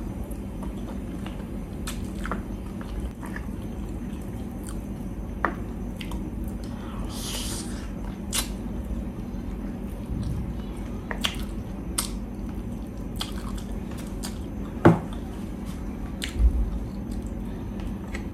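Close-up mouth sounds of a person chewing saucy pork ribs: wet squishing and smacking with scattered short clicks. A single sharper, louder click about fifteen seconds in.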